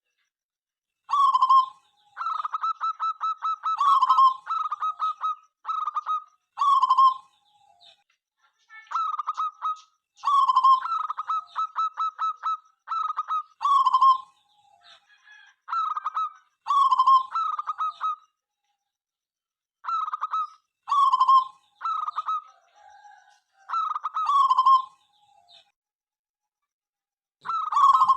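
Zebra dove (perkutut) cooing: repeated short phrases of staccato coos, some opening with a quick pulsed run of about six notes a second, separated by brief pauses and a longer break near the end.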